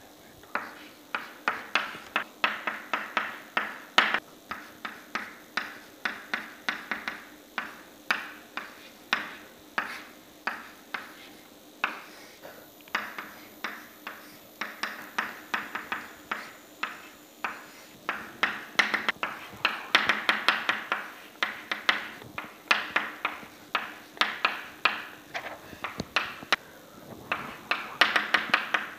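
Chalk tapping and scraping on a blackboard as equations are written: a quick, irregular run of sharp taps in short clusters with brief pauses between strokes.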